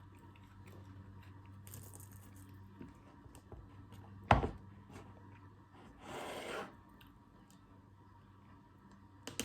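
A single sharp crack about four seconds in, then a short crunching rustle about two seconds later, typical of biting into and chewing a frozen chocolate shell, over a faint steady low hum.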